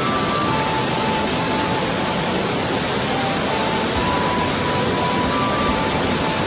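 Mountain stream rushing steadily over shallow rapids, with faint music of slow single held notes over it.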